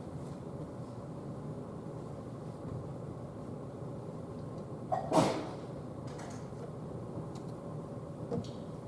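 Quiet room tone with a steady hum, broken about five seconds in by one sharp knock and, near the end, a fainter one.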